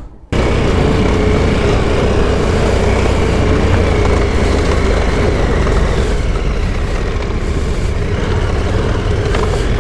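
Motorcycle riding off-road on a dirt trail: a steady engine drone with a heavy low rumble, cutting in abruptly a moment in.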